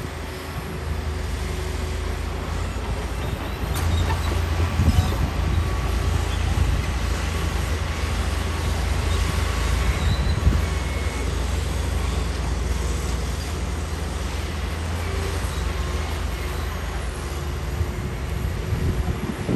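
Heavy diesel earthmoving machinery running steadily under load, with a deep engine rumble and a few sharp knocks of stone.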